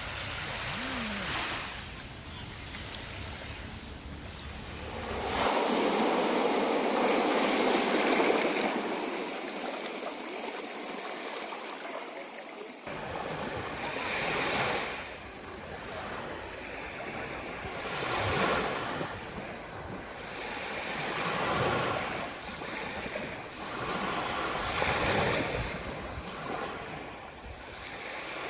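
Sea surf: waves washing in and breaking on the shore. A louder, steady rush of surf runs through the first third, then separate waves swell and fall back every three to four seconds.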